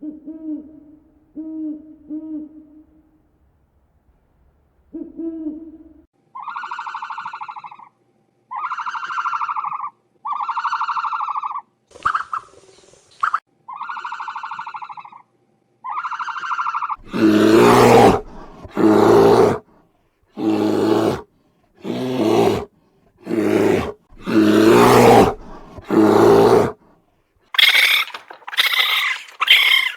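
A run of different animal calls one after another: low, soft hoots like an owl's at first, then a string of evenly spaced mid-pitched calls, then loud harsh calls about once a second, and quick high-pitched calls near the end.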